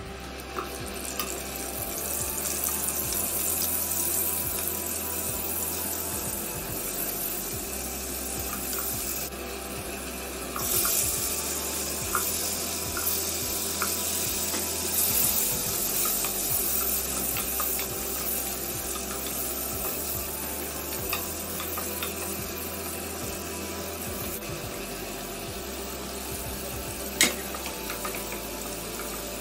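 Baby corn and then sliced mushrooms sizzling steadily as they stir-fry in hot oil in a nonstick pot, with scattered small clicks and scrapes of the spatula and one sharp knock near the end.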